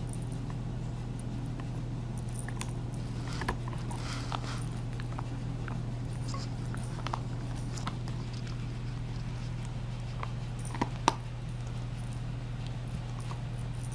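Steady low hum with scattered light clicks and taps, and two sharper clicks close together about eleven seconds in.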